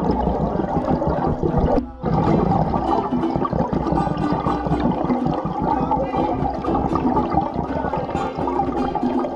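Muffled underwater bubbling and rumbling from a scuba diver's regulator exhaust, with a brief break about two seconds in.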